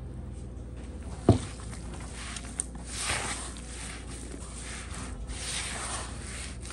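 Hands kneading crumbly flour dough in a plastic bowl: irregular rustling and scraping as the dough is pressed and turned, with one sharp thump about a second in.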